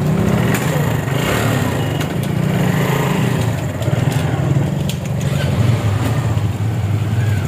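A motor vehicle's engine running steadily, its low drone wavering slightly, with road noise.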